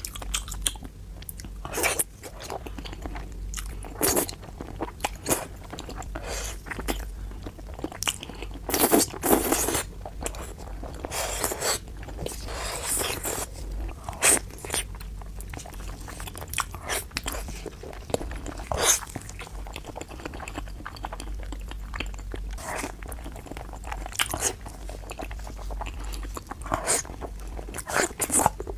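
Close-miked eating: irregular crunching, biting and chewing of food, with bunched crunches now and then.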